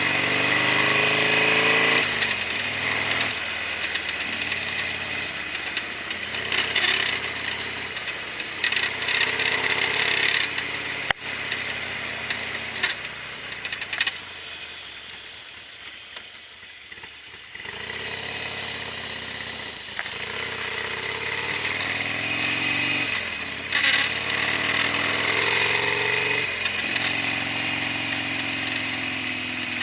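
Harley-Davidson Sportster XL1200R's air-cooled 1200 cc V-twin engine running under way, its pitch climbing and falling through acceleration and gear changes. About halfway through it drops to a lower, quieter stretch, then pulls again.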